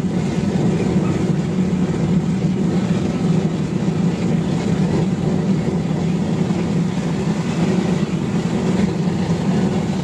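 Blower-fed waste-oil burner firing into a brick furnace: a steady, even roar of the flame jet and the blower's low hum, with the burner turned up hot.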